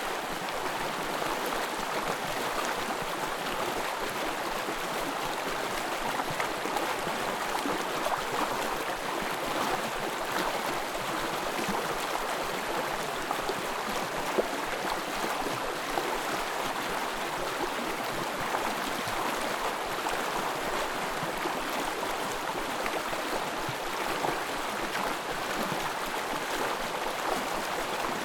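Small forest stream flowing steadily.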